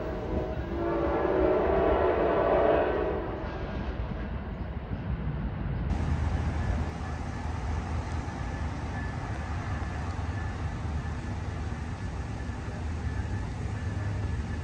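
NJ Transit commuter train's horn sounding as the train pulls away, a chord of several steady tones that fades out about three and a half seconds in. After that a level-crossing warning bell rings on over a low rumble.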